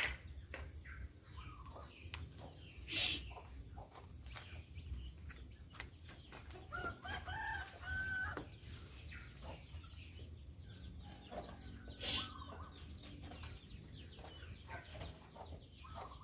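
Faint chickens clucking, with scattered short calls and clicks; two louder short sounds come about 3 s and 12 s in.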